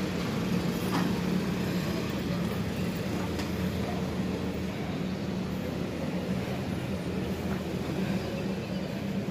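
Urban street traffic noise: a steady low engine hum with general road rumble.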